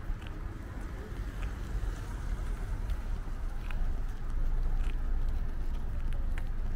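Outdoor ambience: a steady low rumble that grows louder about halfway through, with a few faint light ticks.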